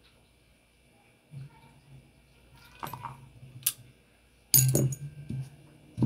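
Small metal clicks as a punch and the parts of a Beretta 92FS pistol frame are handled while the sear spring is refitted. About four and a half seconds in comes a louder knock with rustling, the loudest sound here.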